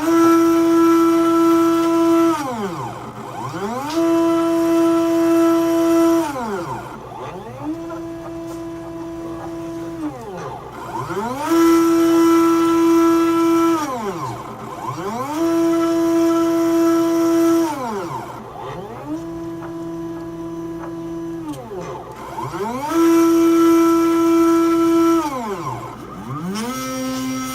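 Stepper motors of a homemade Arduino/GRBL CNC machine driving its lead screws: a series of pitched whines, each rising in pitch, holding steady for about two seconds, then falling away, about eight moves in a row, some louder than others.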